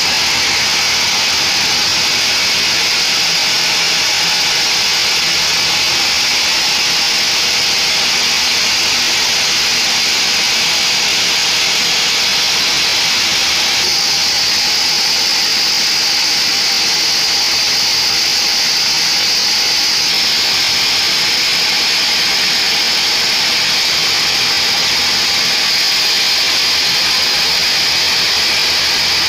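Sawmill band saw cutting through a mahogany log: a loud, steady, high-pitched sawing noise from the running blade and machine. The sound shifts abruptly twice, about halfway through and a few seconds later.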